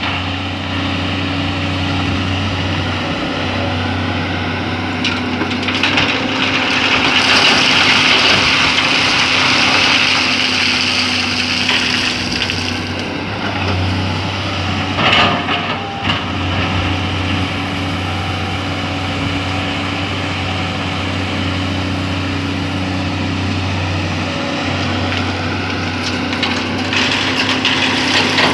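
Excavator's diesel engine running steadily as it works, with a louder hiss lasting several seconds about a quarter of the way in and a sharp knock about halfway through.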